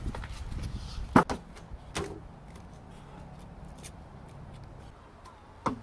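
Sneakered feet running and landing during parkour: a rush of steps, then a few sharp footfall impacts as feet are planted on a railing and its posts, the loudest about a second in, another about two seconds in and one near the end.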